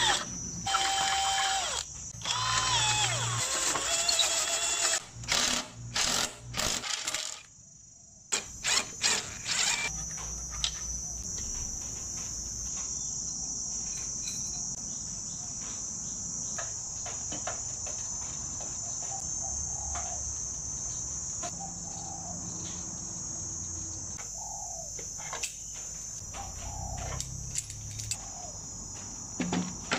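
A cordless drill boring through a pine board in short bursts for the first seven seconds or so, its motor pitch rising and falling as it runs. After that, a steady high insect chirring with scattered light metallic clicks and taps, as nuts are turned onto threaded steel rods.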